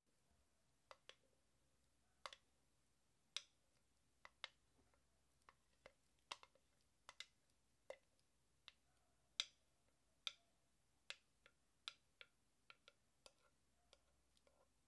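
Faint, irregular clicks and light taps of a blender jar and spoon knocking against a glass bowl while a thick blended paste is poured and scraped out, roughly one or two clicks a second.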